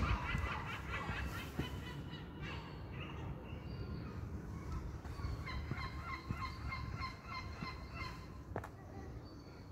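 Many short, high-pitched calls repeating rapidly, from small animals such as kittens or birds, over a low steady rumble. A thump comes at the very start and a sharp click near the end.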